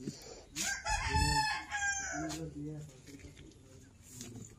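A rooster crowing once: a long call about a second and a half long, starting just over half a second in and sliding slowly down in pitch at the end.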